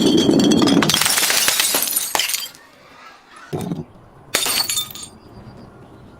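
Glass bottle being smashed: a loud shattering and crunching of glass lasting a couple of seconds, then two shorter crunches about a second apart.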